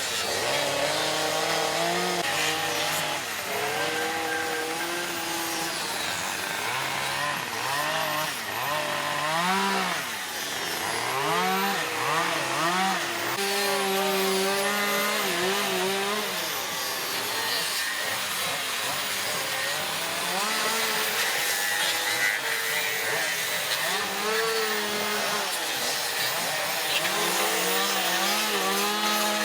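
Several chainsaws cutting wood at once, their engines revving up and dropping back repeatedly as they bite into logs for carving.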